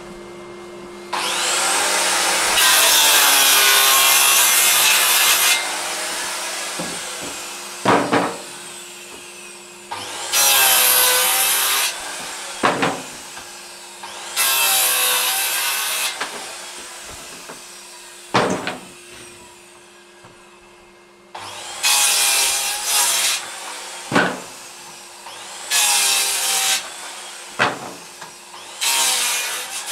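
Makita circular saw making a series of cuts through pieces of wood, each lasting one to four seconds as the blade bites and then spins down. Sharp knocks fall between the cuts. A Henry vacuum, connected for dust extraction, hums steadily underneath.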